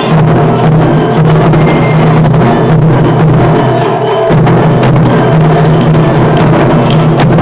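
Taiko ensemble playing: several barrel-shaped taiko drums struck with wooden sticks by a group of drummers in a fast, continuous, very loud rhythm. The deep drum sound briefly lets up just after four seconds in.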